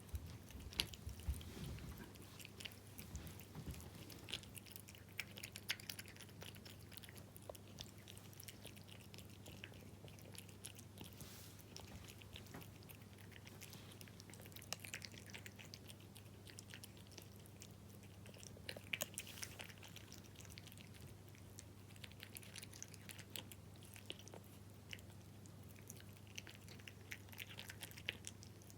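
A cat eating wet food (tuna in jelly): faint, irregular wet chewing and smacking clicks. A steady low hum runs underneath.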